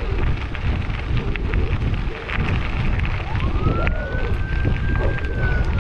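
Fire truck siren winding up about three seconds in to a steady wail, then beginning to slowly fall, over the crunch of bicycle tyres on gravel and wind noise on the microphone.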